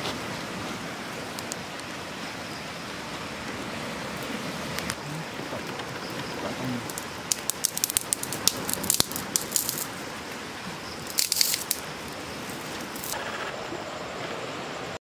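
Wood campfire burning with a steady hiss and sharp crackles, the crackling thickening into quick clusters of snaps about halfway through and again a little later. It cuts off suddenly near the end.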